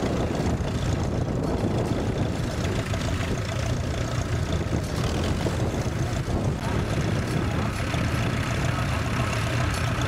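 Vintage tractor engine running steadily as it pulls a mounted plough through the soil.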